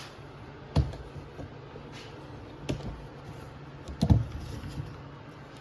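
A few scattered knocks, about two seconds apart, over a steady low hum.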